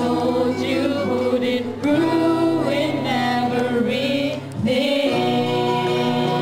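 Music: a voice sings a gliding melody over sustained instrumental chords, and the chord changes about five seconds in.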